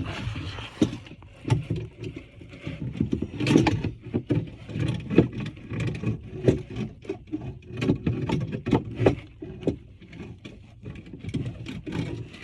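Hands working tub drain and overflow parts in a tight space: irregular clicks, knocks and scraping as pieces are handled and fitted.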